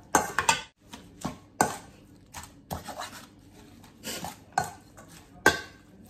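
Metal spoon clinking and scraping against a stainless steel mixing bowl as sliced beef and herbs are tossed, in irregular clatters, the loudest about five and a half seconds in.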